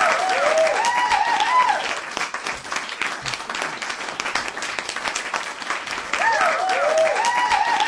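Crowd applauding and cheering, with whoops that rise and fall near the start and again near the end.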